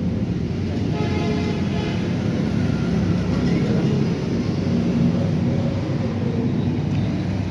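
Steady vehicle or traffic rumble, with a vehicle horn sounding for about a second and a half about a second in.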